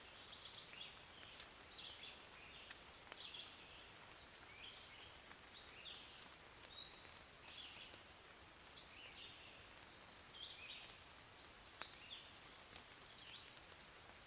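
Faint rain, with scattered drip clicks, under short high chirps repeated one or two times a second.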